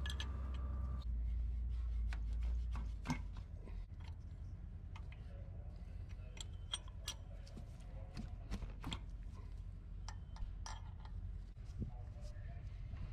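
Scattered light metallic clicks and taps from a box-end wrench working the 16 mm lock nuts on the rocker-arm adjuster screws of a Caterpillar C12 diesel as the nuts are loosened. A low hum under the first three seconds or so then drops away.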